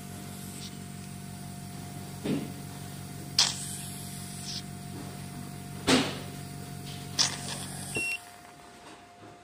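Hydrafacial machine's vacuum pump running with a steady low hum, then cut off with a short electronic beep about eight seconds in. Four sharp hissing pops come from the suction handpiece tip as it is pressed to and lifted from the skin.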